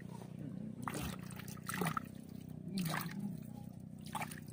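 Shallow river water splashing and dripping in a few short splashes as hands work through the muddy riverbed gathering clams.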